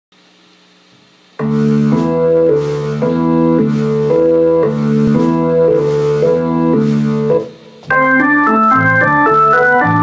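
Keyboard synthesizer with an organ sound, coming in about a second in with rhythmic sustained chords. The chords break off briefly past the middle, then give way to a quicker run of notes.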